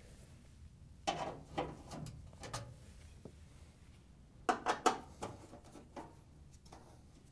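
1/4-inch nut driver clicking and scraping against a hex-head screw in a washer's sheet-metal front panel as it is fitted on and turned. The clicks come in two short clusters, about a second in and again after about four and a half seconds.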